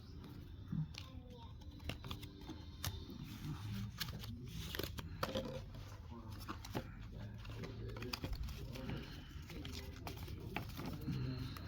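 Trading cards and pack wrapper being handled: scattered soft clicks, taps and rustles over a low steady hum.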